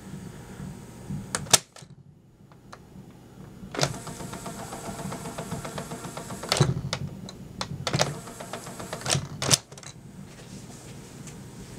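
Plastic piano-key buttons of a 1980 Fisher-Price #826 cassette tape player clunking as they are pressed. A couple of clicks come about a second and a half in and the machine goes quiet. About four seconds in, another click starts the tape mechanism whirring steadily, broken by more clicks at around six and a half and eight seconds, until a last pair of clicks stops it shortly before ten seconds.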